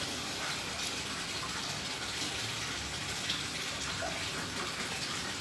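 Steady rushing noise like running water or rain, with a few faint ticks.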